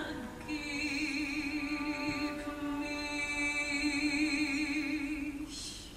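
Live musical-theatre music: one long held note with vibrato for about five seconds, fading near the end.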